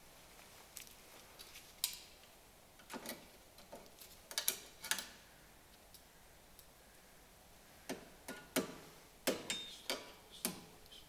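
Irregular sharp clicks and metallic clinks of tools and parts being handled. They come in two clusters with a pause of about three seconds between them.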